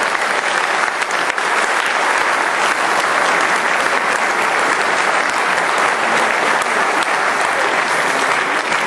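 Loud, steady applause from a crowd, many hands clapping together.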